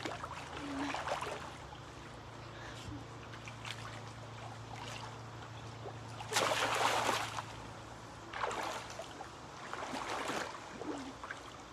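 Pool water lapping and splashing as a swimmer dives and kicks in a small above-ground pool. The loudest splash comes a little past halfway, with two smaller ones after it, over a steady low hum.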